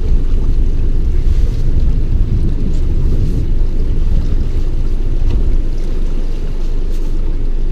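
Steady wind buffeting the microphone over open sea, with waves washing around a small boat.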